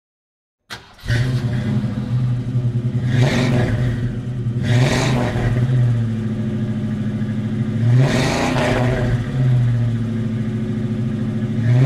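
Car engine revving: a steady running note broken by three revs a couple of seconds apart.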